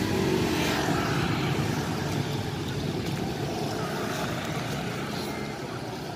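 Street traffic of small motorbikes and scooters passing close by, their engines running together in a steady drone that is loudest in the first couple of seconds and then eases off.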